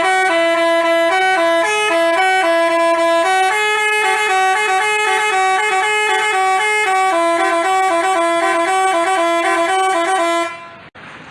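Basuri telolet horn, the multi-tone musical bus horn, playing a quick tune of stepped, held notes. It sounds continuously and loudly, then stops abruptly near the end.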